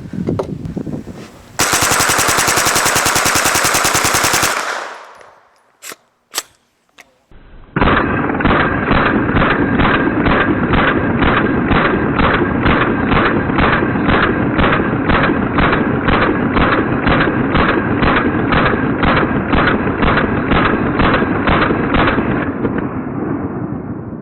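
A Thureon Defense 9mm carbine with a Slide Fire bump-fire stock firing one fast, continuous burst for about three seconds, followed by two single shots. It is followed by music with a steady beat, which fades out near the end.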